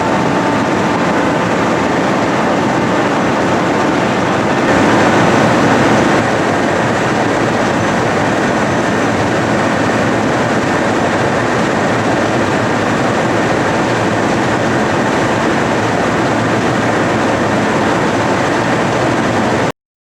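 Mechanized potato harvesting machinery running with a loud, steady mechanical noise that cuts off abruptly near the end.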